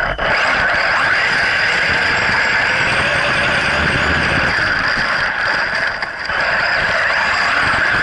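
Remote-control truck's motor and drivetrain running as it drives over grass, picked up by a camera riding on the truck: a loud, steady noise with a high whine. It dips briefly about six seconds in.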